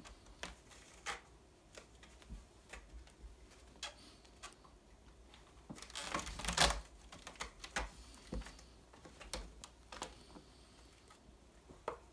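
A cat's paws and claws scuffling, tapping and scratching on a fabric-covered cat-tree platform and sisal post as it spins after its tail. The sound comes as scattered light taps, with a louder burst of scrabbling about six seconds in.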